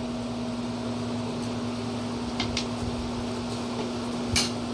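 Steady hum of a running electric appliance holding one constant low tone, with a few light clicks from handling food and dishes, the sharpest near the end.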